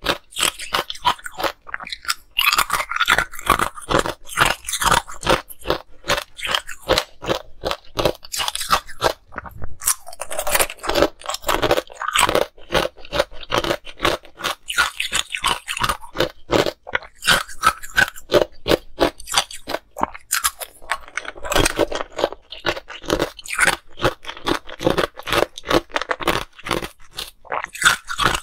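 Ice being bitten and crunched close to the microphone: a dense run of sharp cracks and snaps, about four a second.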